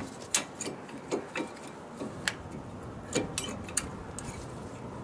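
Irregular metallic clicks and light knocks as a two-piston brake caliper is rocked and worked loose from its mounting on a 1998 Ford Expedition.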